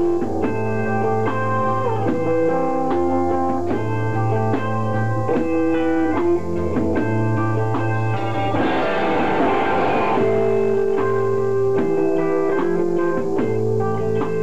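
Live rock band playing: electric guitars ringing out sustained chords over a bass line and drums. A broad wash of noise swells about halfway through and fades a couple of seconds later.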